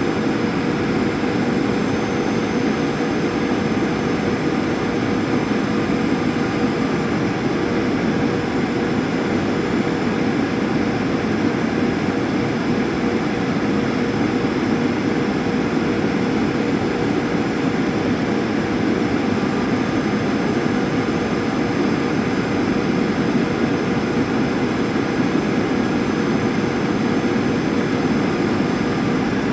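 Steady cabin noise inside a Boeing 737 airliner: a constant rush of engines and airflow with a steady hum running through it.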